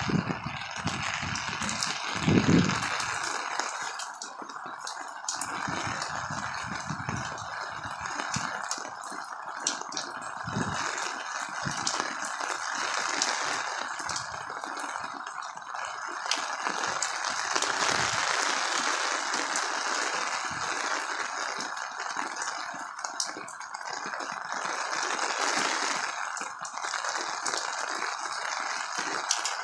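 Heavy torrential rain falling steadily: a constant hiss with many small, irregular ticks of drops striking nearby surfaces. A few low thumps come in the first few seconds.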